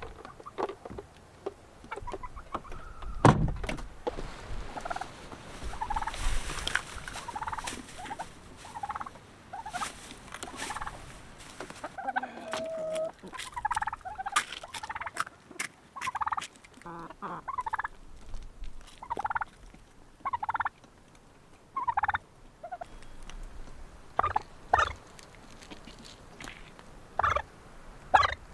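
Birds, likely domestic fowl, calling in many short, separate calls at irregular intervals, with scattered sharp knocks; the loudest knock comes about three seconds in.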